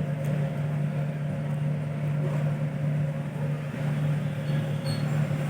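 Steady low electrical hum with a faint even whir from a running repair-bench machine, holding one pitch without change.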